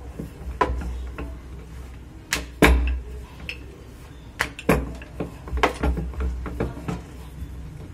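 Wooden rolling pin and wooden rolling board knocking and clacking as dough is rolled out thin: irregular sharp knocks, the loudest pair about two and a half seconds in, over a low rumble.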